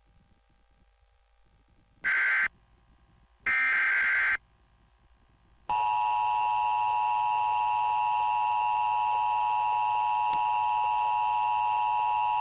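An Emergency Alert System activation. Two short bursts of digital SAME header data sound about two and three and a half seconds in. About six seconds in, the steady two-tone EAS attention signal starts and holds on, announcing a coming tornado warning.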